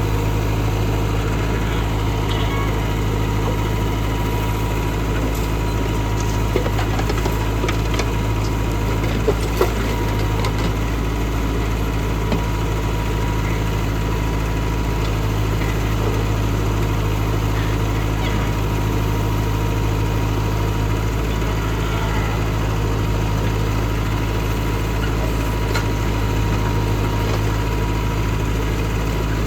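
Tractor diesel engine running steadily at constant speed, with a few short knocks about a third of the way through.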